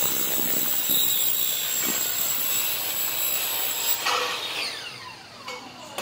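Maktec miter saw cutting an aluminium window-frame profile, a steady high whine. About four seconds in the motor is switched off and winds down in a falling whine.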